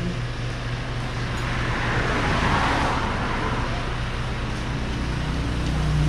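Road traffic: a passing vehicle's noise swells to a peak about two to three seconds in and fades again, over a steady low hum.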